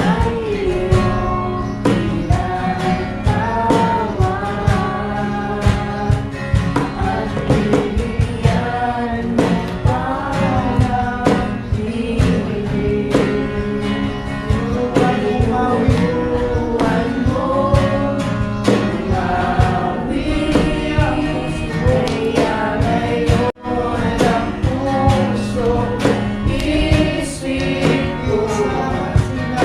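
Christian worship song: voices singing together over instrumental backing with a steady beat. The sound cuts out for a moment about two-thirds of the way through.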